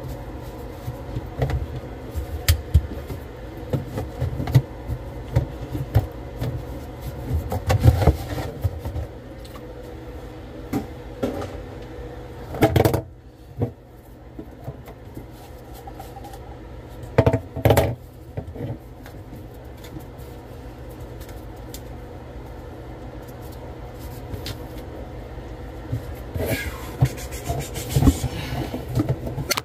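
Scattered knocks and rubbing, in clusters, over a steady low hum.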